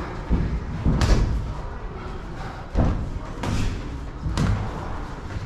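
Sparring in a boxing ring: gloved punches landing and feet stamping on the ring canvas, giving several thuds and slaps spaced irregularly, about half a second to a second apart.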